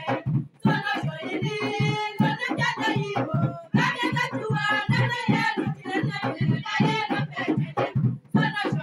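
Voices singing a worship song, sung continuously with short breaks between phrases.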